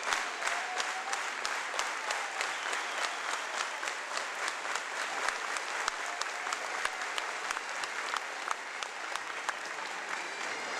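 Crowd applause in a stadium, with clapping in unison at about three claps a second over a steady wash of applause.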